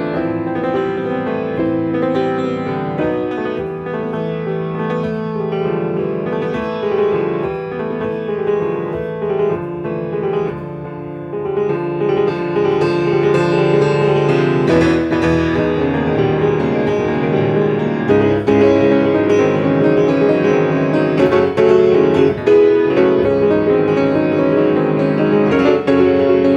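Piano playing a busy passage of quick notes, softer at first, then growing louder and fuller from about twelve seconds in.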